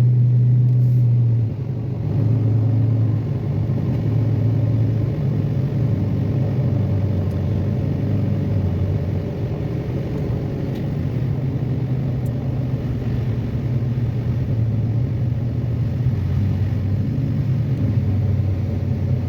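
Steady low drone of a car's engine and road noise heard from inside the cabin while driving, dipping briefly about a second and a half in.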